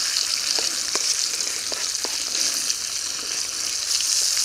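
Sliced potatoes and onions frying in a pan on a small hobo stove: a steady sizzle, with a few light clicks of the utensil turning them in the first couple of seconds.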